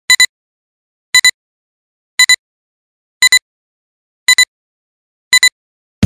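Film-leader countdown sound effect: six short double blips, about one a second, with silence between, counting down 5 to 0. Music starts at the very end.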